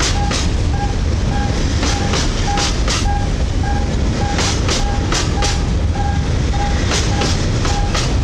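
Freight train of steel hopper wagons rolling past close by: a steady low rumble of wheels on rail, with groups of sharp clicks as the wheelsets cross rail joints. A short high-pitched tone repeats about twice a second over it.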